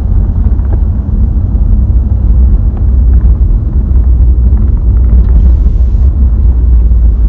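Steady low rumble of a vehicle driving, with a brief hiss about five seconds in.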